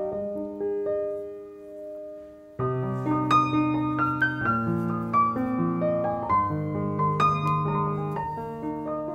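Background piano music. It thins to a few held notes and dips, then comes back abruptly with fuller chords about two and a half seconds in.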